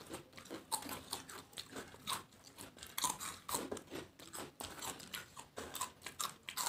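Crisp fried papad being chewed by two people and broken up by hand on their plates: a quick, irregular run of sharp crunches, several a second.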